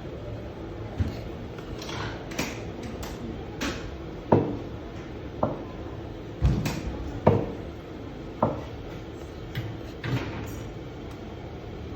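Scattered knocks and clatters of cups, jugs and other café gear being handled and set down at a coffee machine, about ten in all, over a steady background hum.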